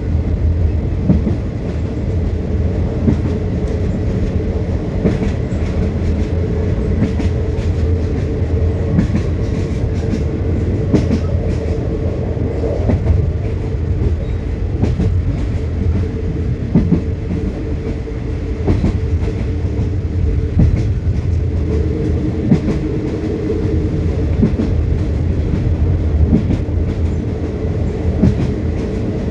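Passenger train running along the track, heard from an open carriage window: a steady low rumble with irregular clicks of the wheels on the rails.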